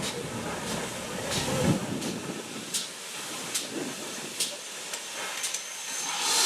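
GWR 57xx class pannier tank steam locomotive working slowly: short, sharp exhaust beats a little more than once a second over a steady hiss of steam.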